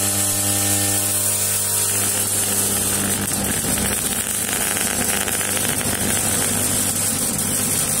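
Electric arc of a homemade arc furnace burning steadily between the electrode rod and the metal charge in its crucible, melting it: a loud, even hiss over a low electrical hum.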